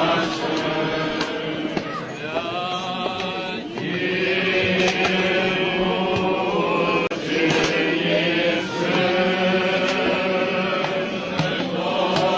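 Eastern Orthodox liturgical chant sung by clergy, long notes held and sliding between pitches, during a blessing of water.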